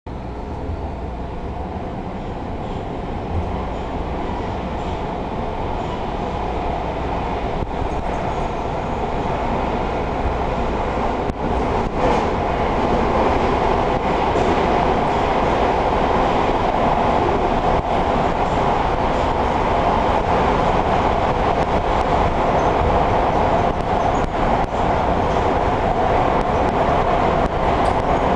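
Interior noise of a MARTA subway train car running, a steady rumble and rush growing gradually louder as the train gathers speed after leaving the station.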